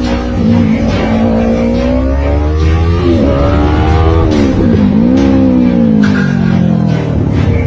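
Big motorcycle's engine running hard under acceleration, its pitch climbing, dipping sharply twice in the middle and climbing again, then falling away near the end.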